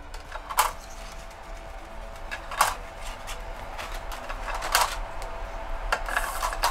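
Light, scattered clicks and taps of thin 3D-printed plastic layers being set down and pressed into a wooden frame.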